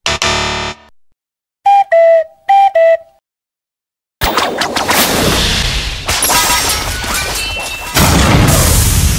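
Cartoon sound effects: a short buzzy burst, then a descending two-note wrong-answer tone played twice. From about four seconds in comes a sustained electric zapping and crackling, which gets louder near the end.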